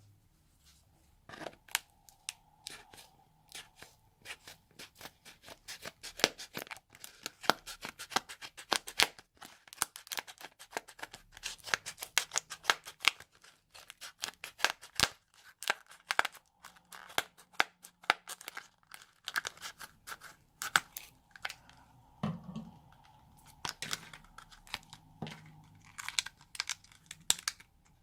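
Slime being kneaded and stretched by hand, giving a rapid, irregular series of sharp pops and crackles as air pockets burst.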